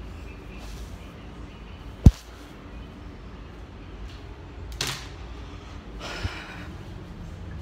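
A single sharp thump about two seconds in, then two brief rustles later on.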